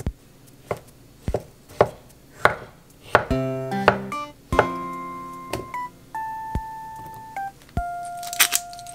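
Chef's knife slicing avocado on a wooden end-grain cutting board: sharp knocks of the blade on the board, roughly one every half second. Light instrumental music with held notes comes in about three seconds in. A quick run of clicks near the end comes as pepper is ground over the bowl.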